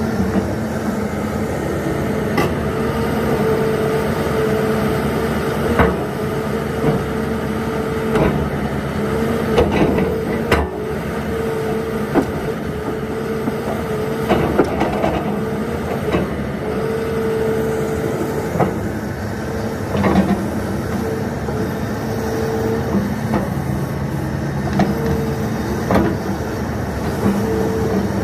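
2013 Cat 320E L hydraulic excavator running and being worked, its six-cylinder C6.6 diesel steady while the boom, arm, bucket and thumb move and the upper swings. A whine comes and goes over the engine, and sharp clunks sound several times.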